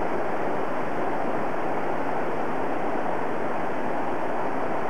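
Steady rush of a shallow mountain stream running over stones.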